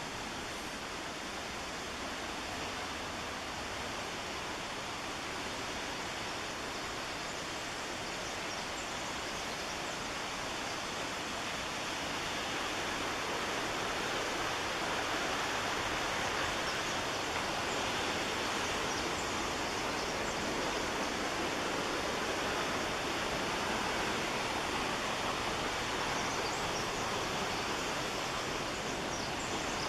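Steady rushing of the McKenzie River's whitewater and falls, growing a little louder about halfway through.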